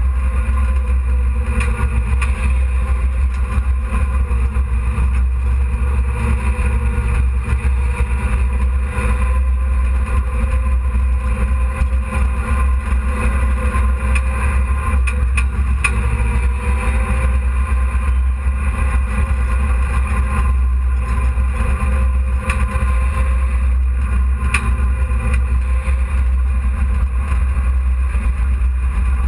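Hobby stock race truck's engine heard from inside its cab, running steadily under a heavy low rumble, its pitch wavering only slightly. A few light clicks sound over it.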